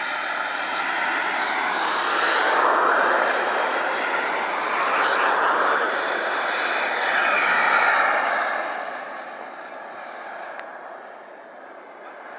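Small turbine engines of model jets, SM Viperjets and a Jetlegend MiG-29, taking off one after another. A high turbine whine with a rush of exhaust swells three times as each jet passes, about two and a half, five and eight seconds in, then fades as they climb away.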